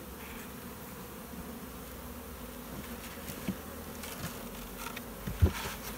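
A honeybee swarm buzzing steadily in a freshly opened hive box. A few light knocks and one sharper thump a little after five seconds in.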